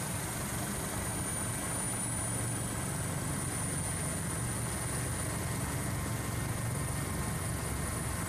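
Steady drone of aircraft engines heard from on board the aircraft filming from the air. No separate blast sound is heard.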